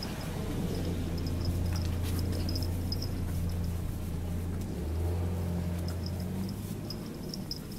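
A motor vehicle's engine running with a steady low hum that shifts slightly partway through and fades out near the end, over short high chirps repeating in little groups, like insects.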